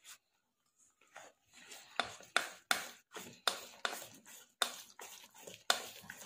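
Wire whisk beating a milky rice-flour batter in a stainless steel bowl, the wires scraping and clinking against the metal about three strokes a second, starting about a second in.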